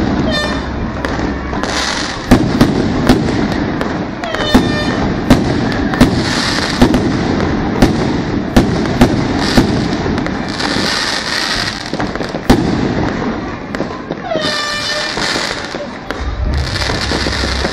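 Aerial fireworks display: a string of sharp bangs from bursting shells, hissing crackle effects, and three whistles that fall in pitch.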